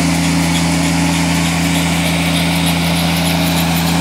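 Engine of cranberry harvesting equipment running steadily, a constant loud drone with no change in speed.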